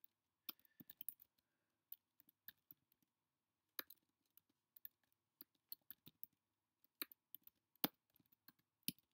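Typing on a computer keyboard: quiet, irregular keystroke clicks, a few a second, with short pauses between bursts and two louder keystrokes near the end.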